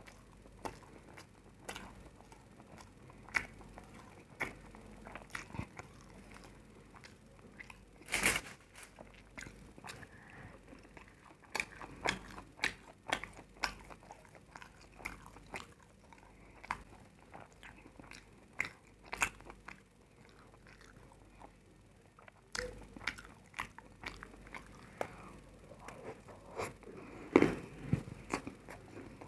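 A person biting and chewing crunchy food close to the microphone, with irregular sharp crunches. The loudest crunch comes about eight seconds in, and there is a short lull about two-thirds through.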